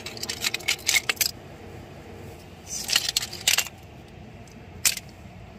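Seashells clicking and clinking against each other as they are picked through by hand: a cluster of sharp clicks at the start, another about three seconds in, and one more near the end.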